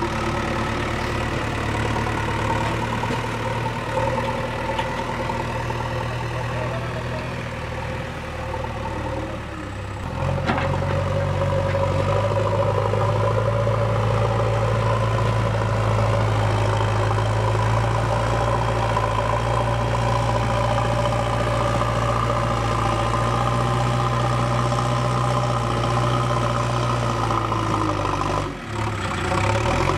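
JCB 3DX backhoe loader's four-cylinder diesel engine running steadily, revving up to a louder, higher pitch about ten seconds in as the loader works, with a brief dip near the end.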